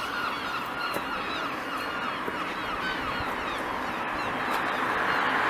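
A flock of seagulls calling, many short overlapping cries at once. A steady rushing noise grows louder toward the end.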